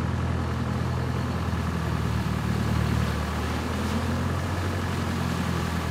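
Engine of a 4x4 off-road vehicle running steadily at low revs as it wades through deep floodwater, with water churning around the wheels.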